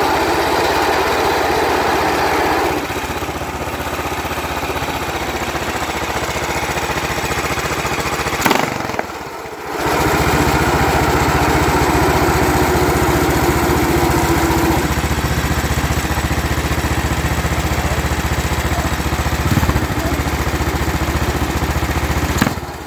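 Race kart's two-stroke engine running on the stand with the rear wheels off the ground. Its revs ease down about three seconds in, it drops out for about a second around eight seconds in and picks up again, then it cuts off near the end.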